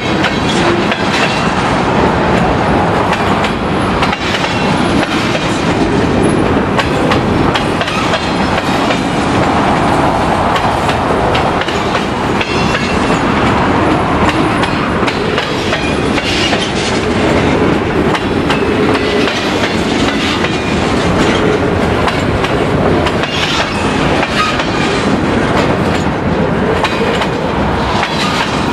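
Freight cars of a passing mixed train rolling by: steady wheel-on-rail noise with a running clickety-clack of wheels striking rail joints.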